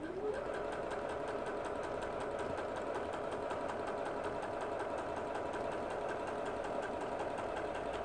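Pfaff Passport 2.0 computerized sewing machine starting with a short rising whine, then stitching steadily at an even speed through damp stretch fabric. This is a test run after an adjustment for skipped stitches, and it sews without skipping a stitch.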